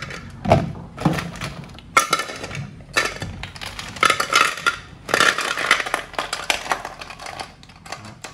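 Apple snails tipped from a plastic basket into an aluminium pot, their shells clattering and clinking against the metal in several rattling runs, with knocks of the basket against the pot.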